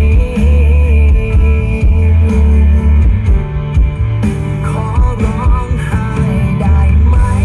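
A Thai song played loud over a large outdoor-cinema PA system during a sound test, with heavy bass and guitar.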